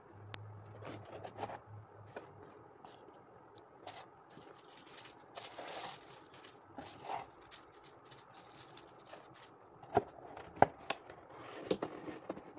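Hands rustling and crinkling paper wrapping and packaging in a cardboard box, with scattered light scrapes, and a few sharp knocks about two-thirds of the way in as the box is handled.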